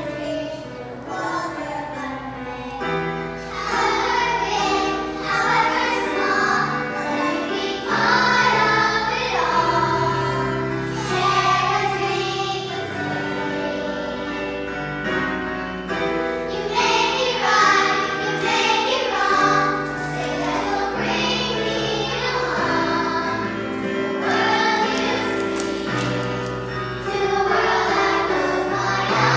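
A group of young children singing a song together over instrumental accompaniment, with a bass line moving under their voices.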